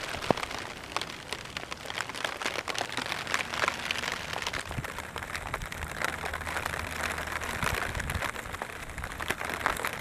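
Rain falling steadily, a dense, irregular run of separate drop hits.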